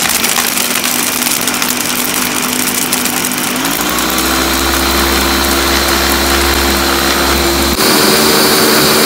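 Ninja countertop blender running on high speed, crushing ice into an almond and milk drink: a loud, steady motor whine over the churning of the jar. The motor's pitch steps up about a third of the way through, and the sound changes abruptly near the end.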